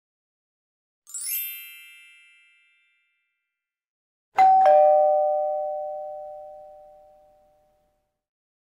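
A brief high, glittering chime about a second in, then a loud two-note descending ding-dong chime about four and a half seconds in that rings out slowly over about three seconds.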